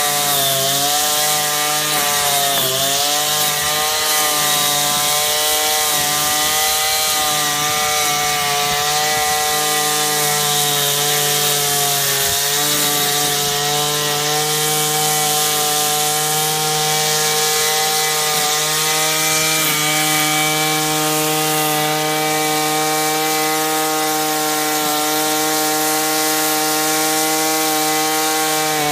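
Backpack brush cutter engine running at high speed while its nylon trimmer head cuts grass. The pitch dips briefly a few times in the first seconds, then holds steady.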